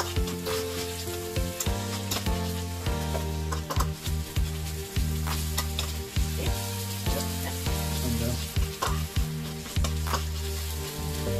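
Food sizzling in a wok on an electric stove while a spatula stirs it, with repeated sharp clacks and scrapes of the spatula against the pan.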